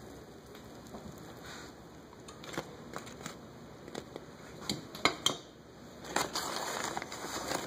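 Metal kitchen tongs clicking and tapping in a string of light, uneven knocks while fried beignets are handled. About six seconds in, a short stretch of rustling and scraping follows.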